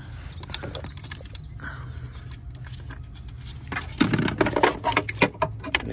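Plastic clips and trim in a car's engine bay clicking and rattling as they are handled and pulled free, with a quick run of sharp clicks and knocks about four seconds in. A low steady hum runs underneath.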